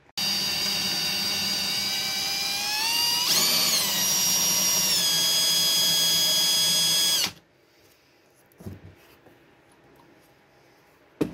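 Cordless drill drilling out a screw seized by rust in a corroded aluminium CPU heat sink. The motor whine climbs in pitch about three seconds in, then eases down a little and runs steady for several more seconds before it stops suddenly.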